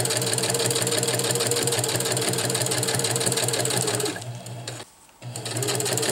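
Husqvarna Viking sewing machine with a walking foot running at a steady fast stitch, sewing a seam. About four seconds in it slows and stops for a moment, then starts stitching again.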